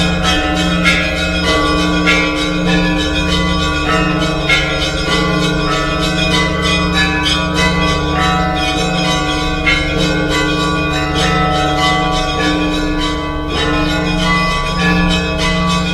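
Orthodox church bells ringing a continuous peal: small bells struck in rapid, overlapping strokes over the steady hum of the larger bells.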